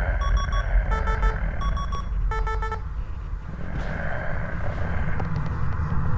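Digital alarm clock beeping in quick groups of short beeps, a group about every 0.7 seconds, stopping about three seconds in. A low rumble and hiss lies under it and runs on after the beeping stops.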